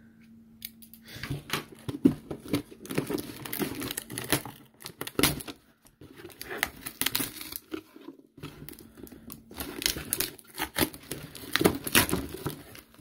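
Packing tape being ripped and peeled off a cardboard shipping box, with the cardboard flaps tearing and crinkling under the hands. Irregular tearing and rustling starts about a second in, with brief pauses around the middle.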